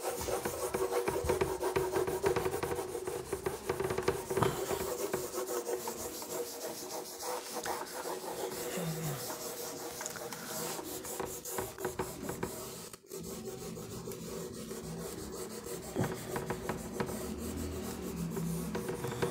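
Handheld eraser rubbing over a whiteboard in quick back-and-forth strokes, wiping the board clean, with a brief pause about two-thirds of the way through.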